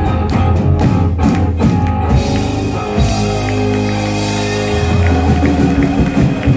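Live rock band playing electric guitars, bass and drum kit. Sharp drum hits for the first couple of seconds, then held chords ringing over a wash of cymbals.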